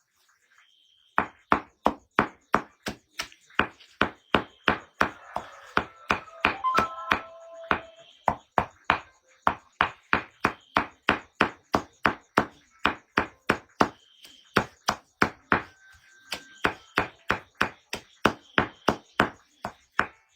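Chopping: a long, even run of sharp blade strikes, about three a second, that starts about a second in and stops just before the end.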